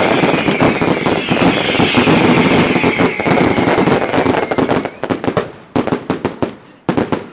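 A volley of firework rockets: dense hissing and crackling with a high whistling tone over it. About five seconds in, this gives way to a quick string of separate sharp cracks as the rockets burst.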